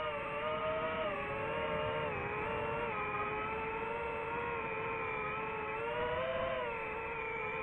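DJI FPV drone's motors and propellers whining steadily in low, fast flight, the pitch dipping and rising a little with throttle.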